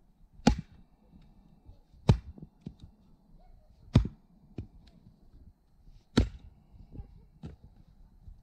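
Axe chopping dead wood: four heavy strikes about two seconds apart, with lighter knocks in between.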